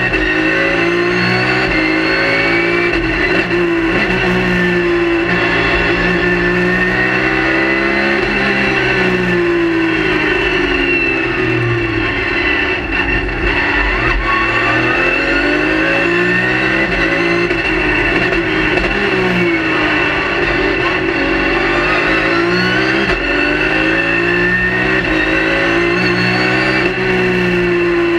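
Race car engine heard from inside the cockpit at speed, its pitch climbing and falling again and again as the car accelerates and slows for corners. A steady high whine runs over it.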